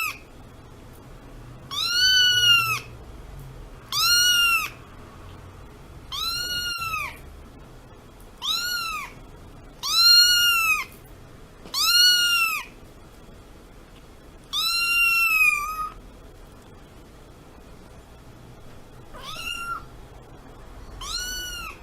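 A cat meowing over and over, about nine long arching meows each spaced a couple of seconds apart, the last two fainter.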